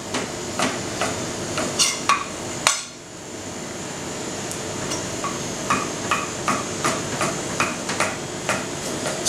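Chef's knife slicing chorizo into rounds on a thick wooden chopping block: the blade knocks on the wood with each cut, a few knocks in the first two seconds, a pause, then a steady run of about two or three a second in the second half.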